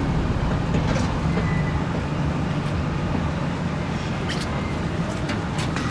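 Boat engine running steadily at low speed during mooring, a low even hum, with a few light clicks near the end.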